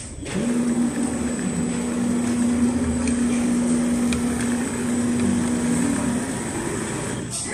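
Automatic quilting sewing machine running as it stitches a large padded headboard panel: a steady motor hum with a constant tone that stops shortly before the end.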